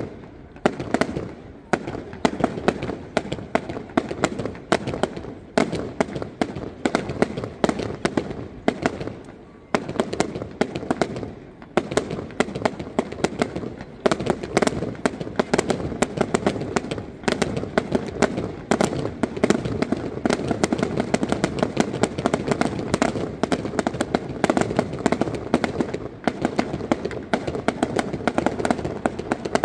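Fireworks display: aerial shells bursting in quick succession, a stream of bangs that is looser for the first ten seconds or so and then becomes an almost continuous volley.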